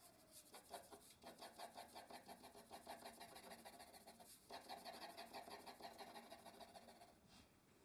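Faint pencil shading on drawing paper: quick, even hatching strokes, several a second, stopping shortly before the end.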